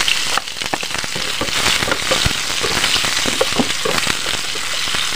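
Freshly added sliced onions sizzling in hot mustard oil in a frying pan: a steady frying hiss with many sharp crackles and pops.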